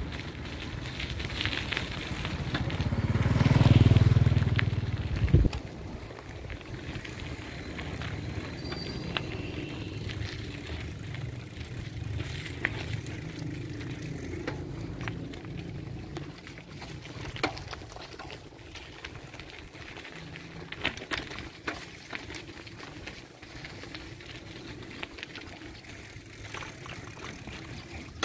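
A motorcycle approaches and passes close by. Its engine builds to its loudest about four seconds in and drops away suddenly about a second later. After that there is a steady, quieter outdoor background with scattered small ticks.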